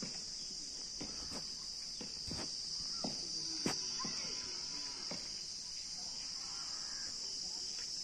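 Steady, high-pitched drone of an insect chorus, with a few faint knocks and one sharp click a little before halfway through.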